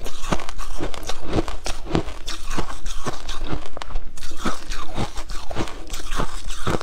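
Shaved ice being bitten and chewed, a steady run of crisp crunches about two a second.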